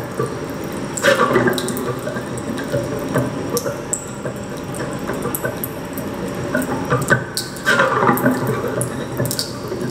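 Water trickling and splashing, with scattered light clicks.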